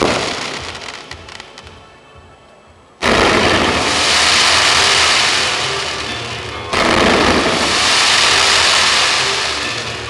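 Fireworks display: a few bangs and the rumble of a salvo die away over the first three seconds. Then loud, dense, steady fireworks noise starts abruptly, fades a little, and starts abruptly again near seven seconds.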